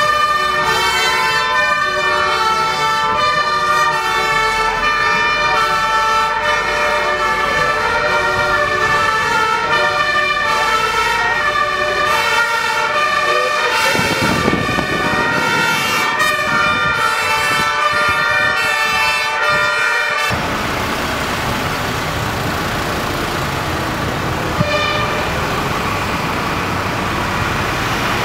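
Two-tone sirens of emergency vehicles in a convoy, several overlapping high-low tones alternating, heard from inside a vehicle in the column. About twenty seconds in the sirens cut off and steady vehicle and road noise remains, with a single knock near the end.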